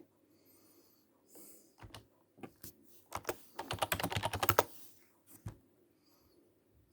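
A run of quick clicks lasting about a second and a half, like typing on a keyboard, with a few single clicks before it and one after.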